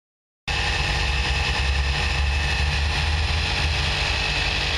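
Air compressor motor running steadily with a low hum, pumping up a homemade PVC pipe cannon's air chamber toward 120 PSI. It starts abruptly about half a second in.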